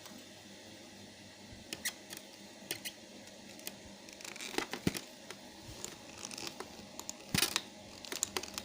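Scattered clicks, taps and brief rustles of plastic pressure-washer parts being handled, with a cluster about halfway through and a louder rustle near the end.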